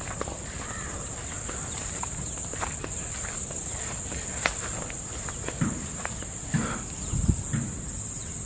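Insects chirring in one steady high-pitched drone, with light crunching footsteps through dry grass and leaf litter and a few soft thumps in the second half.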